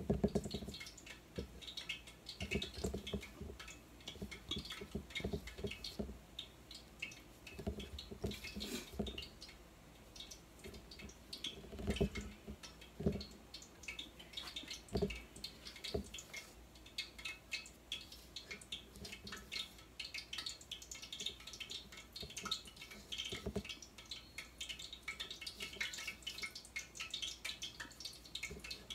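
Hands dredging seasoned spareribs in flour in a stainless steel mixing bowl: soft rustling, with a few dull thumps as the ribs hit the bowl, over a continuous patter of faint small ticks.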